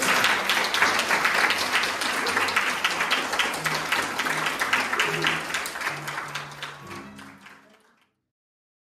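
Audience applauding, a dense clatter of many hands that fades out about seven and a half seconds in, with soft background music underneath.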